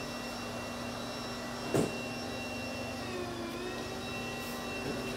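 Steady whirring hum of an electric motor, its pitch dipping briefly and recovering about three seconds in, with one sharp click about two seconds in.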